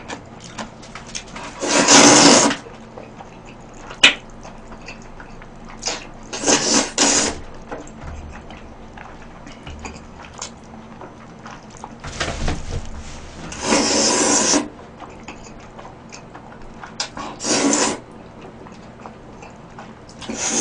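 Noodles slurped up close to the microphone: about five long, loud slurps of jjajangmyeon, with small wet chewing sounds between them and one sharp click about four seconds in.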